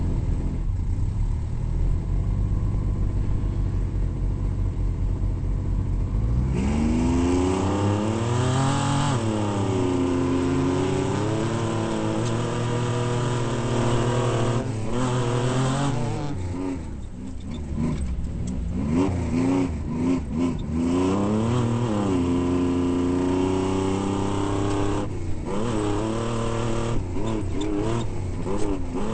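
Off-road race vehicle's engine, running steadily at first, then revving hard from about six seconds in, its pitch climbing and dropping again and again as it accelerates and backs off.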